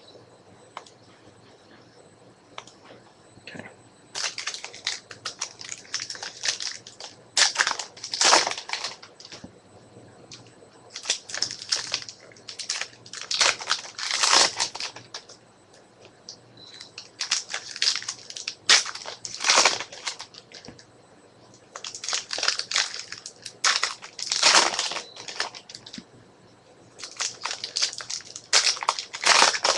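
Trading-card pack wrappers crinkling and cards being handled, in five bursts a few seconds long with short pauses between, after about four quiet seconds.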